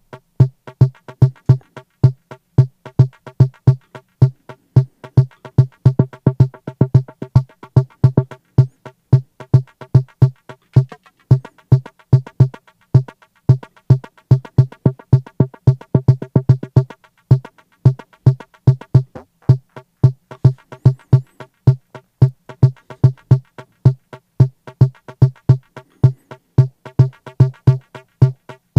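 The Arturia Drumbrute Impact's metronome click, pitched down two octaves and played from a sampler as a rhythm through distortion and a single delay. It sounds as short, low, pitched hits, several a second, with echoes trailing some of them.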